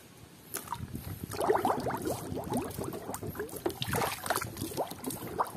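Water splashing and sloshing in a plastic tub as a toy cow is swished back and forth through it by hand, starting about half a second in.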